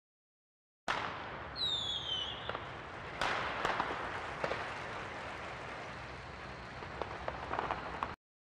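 Intro sound effect: a steady hiss with scattered crackles and clicks that starts abruptly about a second in, a short falling whistle soon after, and a louder burst of hiss about three seconds in; it cuts off suddenly near the end.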